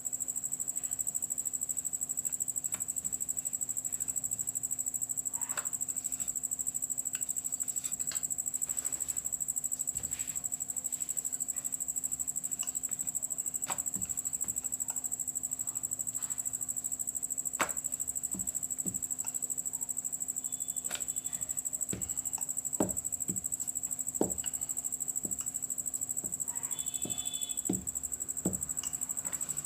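A rolling pin working dough on a rolling board, with scattered light knocks and clicks, a few sharper ones near the end. Underneath is a constant high-pitched whine like an insect's trill, with a faint low hum.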